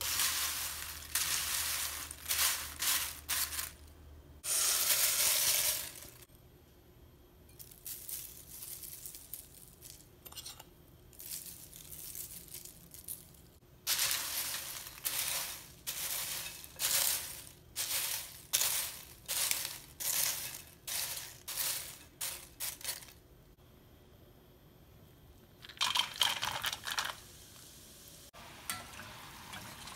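Crisp fried corn flakes being tossed with a spatula in a glass mixing bowl: repeated short dry rustling, clattering strokes in clusters, with quieter pauses. Near the end, hot oil sizzles in a frying basket.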